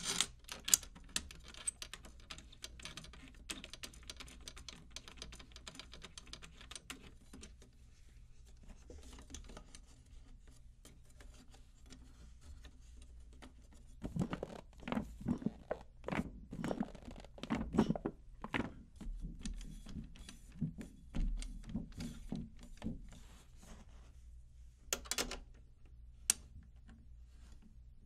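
Hands working a new Evans drumhead and chrome hoop onto a 10-inch tom, with the tension rods being threaded by hand. First a run of small light clicks and ticks from the metal hardware, then soft thumps and rubbing on the head for several seconds past the middle, and a few sharp clicks near the end.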